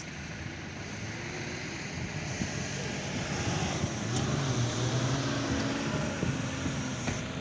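Off-road 4x4 engine working hard up a steep sandy climb, getting louder about halfway through, over a steady hiss.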